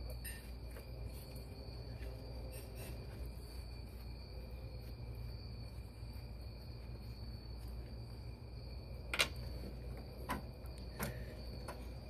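Brake line fittings handled and threaded at the ABS hydraulic unit: a few light clicks, the sharpest about nine seconds in, over a steady low hum and a thin, steady high-pitched tone.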